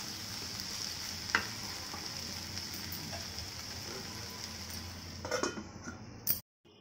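Capsicum, onion and tomato sizzling in a nonstick kadai as a wooden spatula stirs them, with a sharp knock about a second in. Near the end a few clatters come as the glass lid is set on the pan, then the sound cuts off suddenly.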